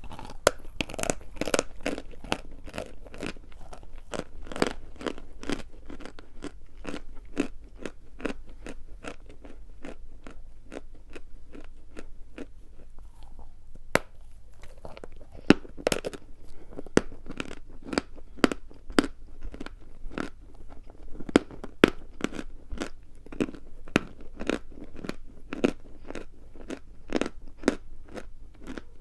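A person crunching and chewing dry chalk, with sharp crunches coming about three times a second.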